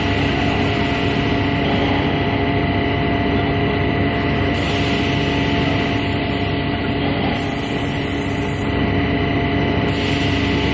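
A ceramic honeycomb extrusion and cutting line running: a steady machine drone with several constant hum tones that holds level throughout.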